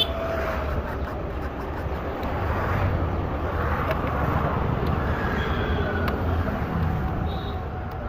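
Steady low rumble of street traffic, with a few faint clicks.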